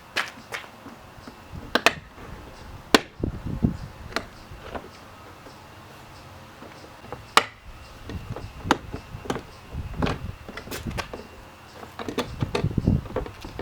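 Plastic door trim panel on a GMC Sierra's rear door being pried and worked off its clips: scattered sharp plastic clicks and snaps, with bouts of low thumping and rattling as the panel is pulled, while a stubborn bottom clip holds on.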